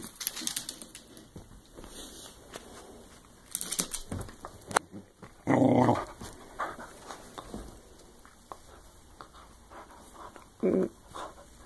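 A dog playing with a tennis ball, vocalizing in short outbursts, the loudest about five and a half seconds in. A single sharp knock comes just before it.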